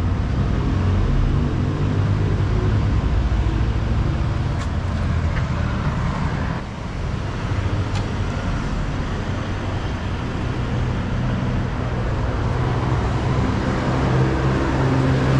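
Steady low hum of an idling vehicle engine, with a few faint clicks.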